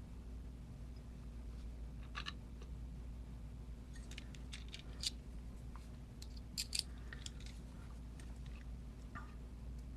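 Scattered small clicks and taps of Emhart lock cylinder parts and tools being handled during reassembly, bunched in two clusters in the middle, over a steady low hum.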